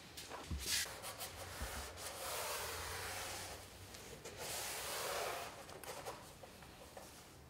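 Hands rubbing along the edge of a painted panel: a short scrape, then two long rubbing strokes.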